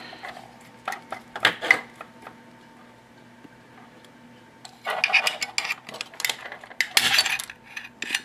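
Metal parts of a 3.5-inch floppy drive clinking and scraping as gloved hands pull the spindle motor's rotor off its steel chassis. A few light clicks come about a second in, then a dense run of rattling and scraping starts about five seconds in.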